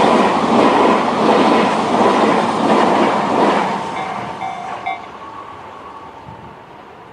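Tobu 100 series Spacia electric train passing over a level crossing, its wheels clattering over the rail joints, with the crossing's electronic warning bell (Tobu type-C tone) ringing. The train noise fades about four seconds in, and the bell stops about a second later as the crossing alarm ends.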